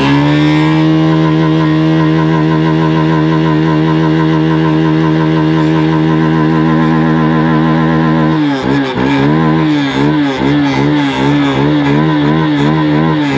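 Hero Xtreme 160R's single-cylinder engine held at steady high revs with its silencer submerged in river water, the exhaust blasting out a spray of water. About two-thirds of the way through, the engine note starts rising and falling about twice a second as the throttle is pumped.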